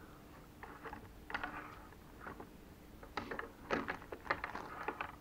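Handling noise from a toy kit's packaging: a paper instruction sheet sliding and a clear plastic parts tray and bag crinkling, with small plastic parts clicking against each other. The clicks and crinkles grow busier and louder about three seconds in.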